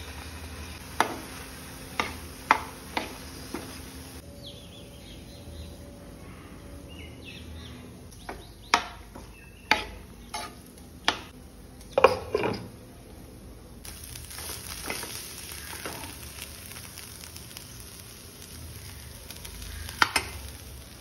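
Diced beetroot sizzling in a hot nonstick frying pan as it is stirred with a steel spoon, the spoon knocking sharply against the pan in bursts, in two clusters and once more near the end.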